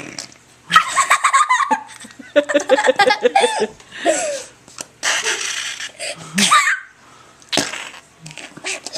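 A child laughing in several loud bursts of giggles, with short pauses between them.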